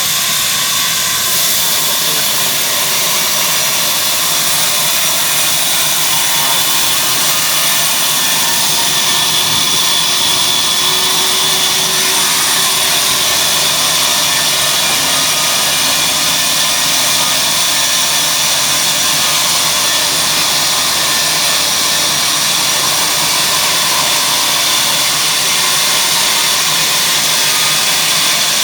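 Engine-driven wood-cutting machine running steadily: a loud, even mechanical noise with a strong hiss and no change in speed.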